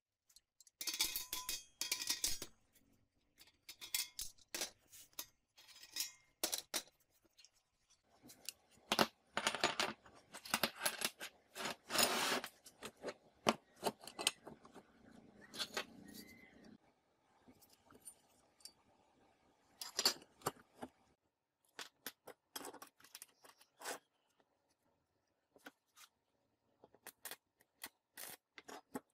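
Pieces of steel square tubing and small steel plates clinking and knocking as they are handled and set down on a workbench, in scattered clusters. Near the end comes a crackling burst from arc welding with a stick electrode.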